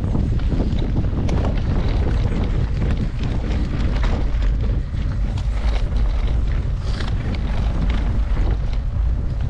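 Wind buffeting the microphone of a mountain bike in motion, with frequent small knocks and rattles from the bike over rough ground.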